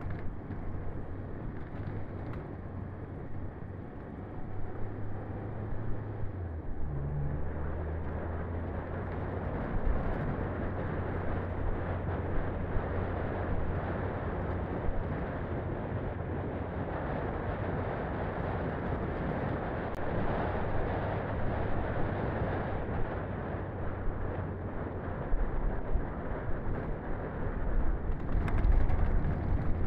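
Daihatsu Feroza 4x4 driving along a dirt and gravel track: a steady low engine hum over the rough noise of tyres on the dirt. The engine note shifts lower about six seconds in, and there are a few louder bumps near the end.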